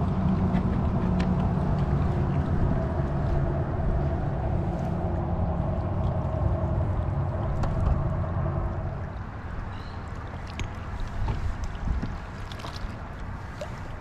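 A boat motor running with a steady low hum and water noise, dropping back about nine seconds in.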